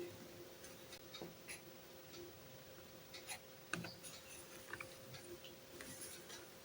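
Faint, scattered ticks and light scratches of drawing on paper, over a faint steady hum.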